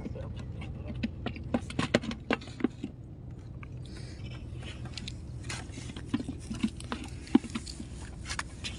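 Scattered small clicks and knocks at an uneven pace over a steady low hum.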